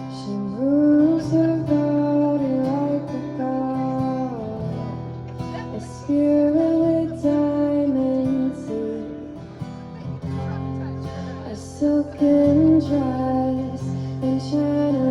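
Live roots-pop band music: strummed acoustic guitar and drums under a held, gliding melody line, with regular cymbal hits.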